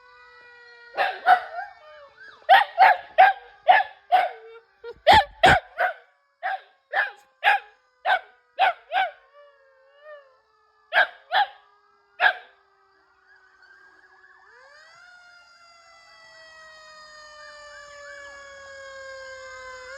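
Dog barking in about twenty short, sharp yaps in reaction to a fire truck siren playing from a video. The yaps come in quick runs for about the first twelve seconds, then stop. The electronic siren wail slowly falls in pitch under the barks, then sweeps up again in the second half.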